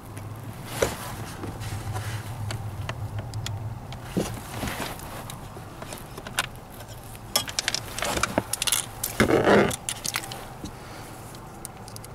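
Clicks, light knocks and metallic rattles of a driver handle and socket extension against metal brackets and plastic dashboard trim as bolts are worked behind the glovebox opening, with a quick run of clicks and one louder scraping rustle about nine seconds in.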